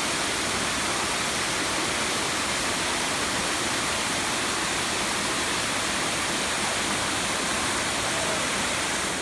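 Waterfall: steady rush of falling water.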